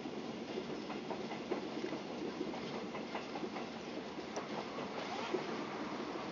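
Passenger train running on the rails, heard from inside a KTM intercity sleeper carriage: a steady rolling noise with light, scattered clicks from the wheels on the track.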